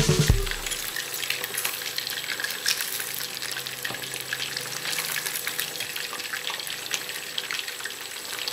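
Chicken pieces deep-frying in hot oil in a stainless steel pot, a steady sizzle with fine crackling, as the pieces are turned with metal tongs.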